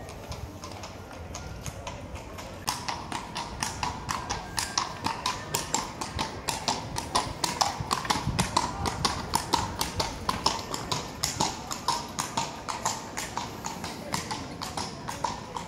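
Horse's hooves clip-clopping on stone paving: a steady run of sharp clops, about three or four a second, louder from about three seconds in.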